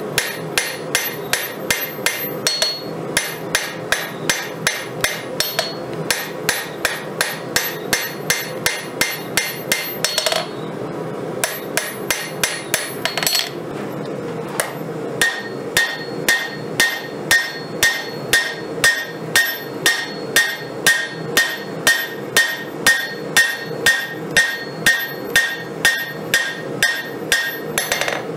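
Hammer forging 5160 steel on an anvil: steady blows about two to three a second, with a short break about ten seconds in. From about halfway on, each blow rings with a clear tone. A steady rushing noise runs underneath.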